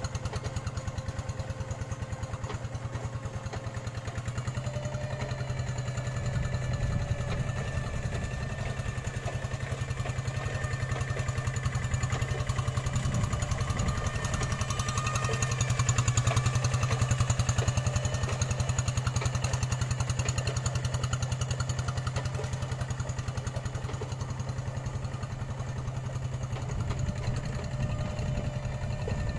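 Two-wheel hand tractor's single-cylinder diesel engine running steadily as it works through paddy mud, getting louder about halfway through and easing off again.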